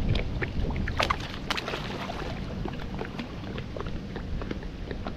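Heavy rain, with drops ticking irregularly and sharply on the camera and rain gear, a few ticks louder about a second in, over a steady low rumble.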